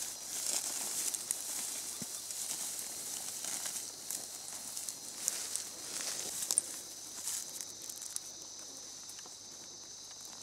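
Footsteps crunching and swishing through dry grass as people and a dog walk uphill. A steady high insect drone runs underneath and comes clear in the second half.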